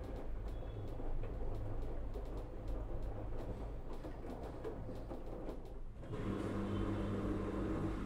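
LG FHT1208SWL direct-drive front-load washing machine tumbling its laundry load in rinse water: an even churning, sloshing noise. About six seconds in the sound changes abruptly to a steadier machine hum.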